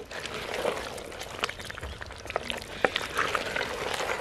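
Beef head meat frying in oil in a clay pot and being stirred with a wooden spoon: a steady sizzle with many scattered sharp clicks and knocks.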